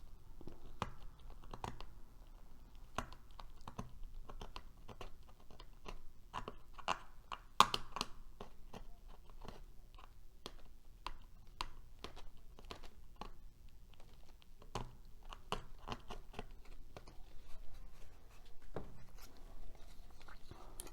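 Irregular small clicks and crunchy scrapes of a balsa wood wing part being trimmed down by hand to fit.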